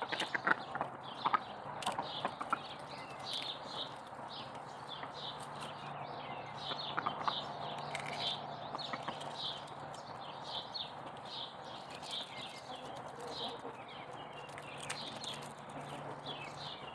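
Birds chirping, many short falling chirps repeated throughout. In the first couple of seconds there are sharp crunching clicks, which fit dogs chewing eggshells.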